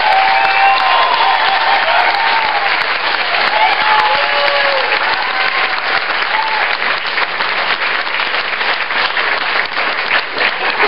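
Wedding guests applauding and cheering, with whoops rising over the clapping during the first few seconds, then steady clapping.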